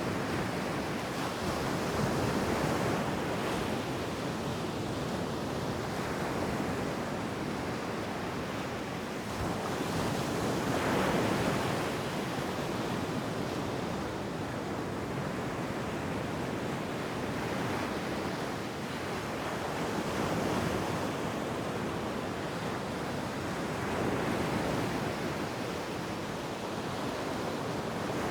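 Ocean surf washing onto a beach, a steady rush of water that swells and eases every few seconds as waves break, the biggest about eleven seconds in.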